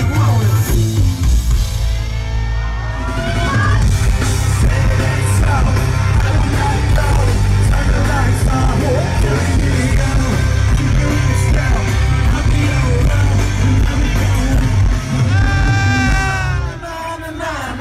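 Loud music with heavy, pounding bass and yelled, sung vocals; the bass drops out briefly near the end.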